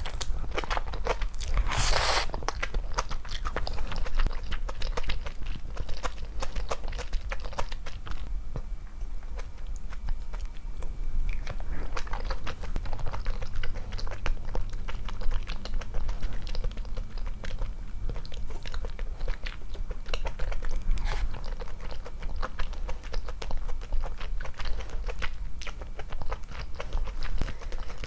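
A person chewing and biting food close to the microphone: a constant run of small wet clicks and bites, with a louder burst about two seconds in.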